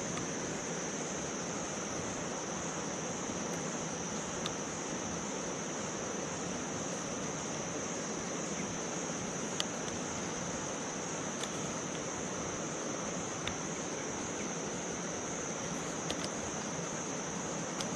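Insects droning steadily at one high pitch over a constant background hiss, with a few faint clicks scattered through.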